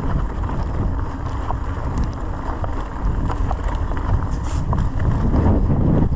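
Mountain bike rolling along a dirt singletrack: wind buffeting the camera microphone over a constant rumble of tyres on the dirt, with frequent small rattles and clicks from the bike over bumps, rougher and louder near the end.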